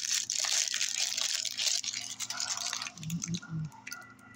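Close-up wet chewing and smacking mouth sounds of someone eating, then a few short hummed "mm" sounds about three seconds in.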